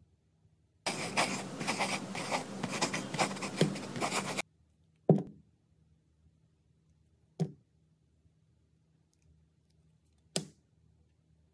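Utility knife blade scraping across a clear heart-shaped soap bar, a dense scraping that stops abruptly after about three and a half seconds. Three single sharp clicks follow, a couple of seconds apart.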